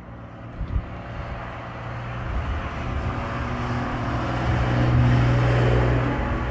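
A motor vehicle's engine running, its sound swelling to a peak about five seconds in and then easing off, with a brief knock just under a second in.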